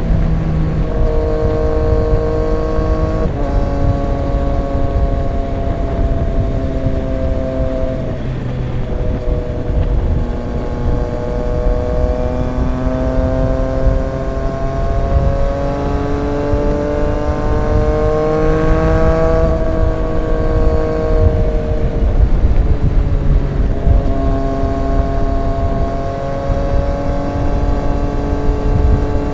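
Triumph Street Triple 765 RX's inline three-cylinder engine through an SC Project S1 exhaust, cruising under light throttle with wind and road rumble. The engine note holds steady in stretches, rises slowly in pitch through the middle, drops about two-thirds of the way in, then settles again.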